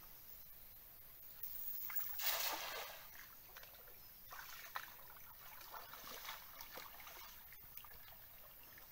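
A cast net lands on the water with a splash about two seconds in. Then comes lighter sloshing and dripping as someone wades through waist-deep river water.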